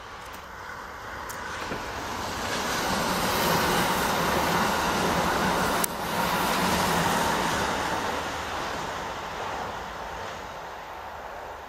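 A JR limited express electric train passing on the track. Its running noise grows as it approaches, is loudest in the middle as it goes by, then fades away as it recedes.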